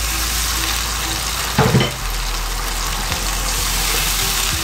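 A cup of water poured into a nonstick pan of hot oil and fried onions with whole spices, sizzling and hissing steadily while a wooden spatula stirs it through.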